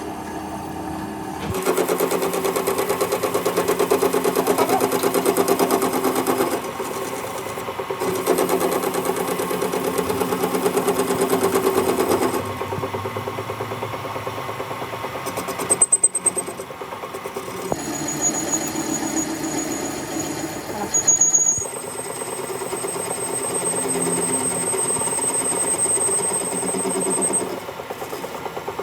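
An electric workshop machine runs with a steady motor hum, coming in spells that change in level every few seconds. Two sharp knocks come about midway, and a thin high-pitched whine sounds on and off in the second half.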